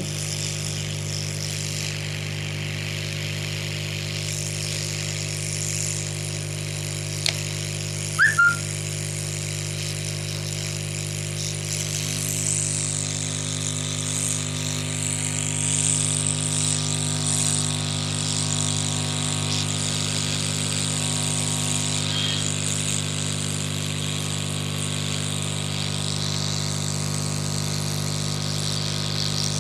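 Hot-air rework blower running steadily, a low hum under a rushing airy hiss, as it heats the solder to lift the charging port off the phone's board. A click about 7 seconds in and a short high chirp just after it.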